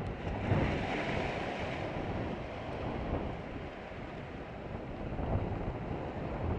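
Small sea waves washing against the rocks along a breakwater, swelling about half a second in and again near the end, with wind buffeting the microphone.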